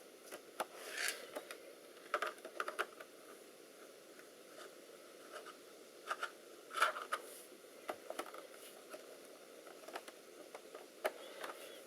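Faint scattered clicks and short scrapes of small plastic and metal laptop parts being handled, as a TV tuner module is worked sideways out of its place in an open laptop.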